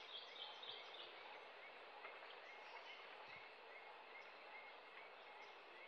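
Faint rainforest background: a steady hiss with a short chirp repeated about every half second.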